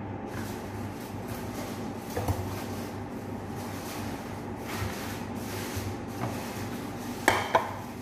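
Food being worked over a ceramic plate: soft scraping and light knocks, with two sharp clicks near the end, over a steady low hum.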